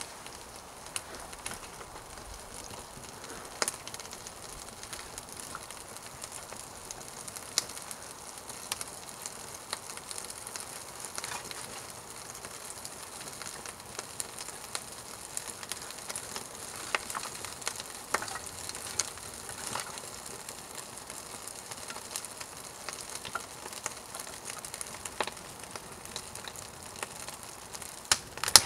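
Small campfire of birch bark and wood shavings catching and burning: a steady hiss with scattered sharp crackles and pops.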